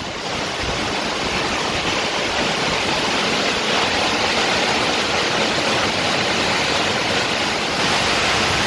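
Heavy downpour of rain pouring onto roofs and paving, a dense, steady hiss so loud that nothing else can be heard. It grows slightly louder about half a second in.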